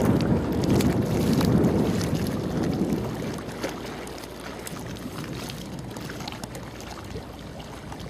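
Wind rumbling on the microphone over the water noise of a small boat, easing off about three seconds in.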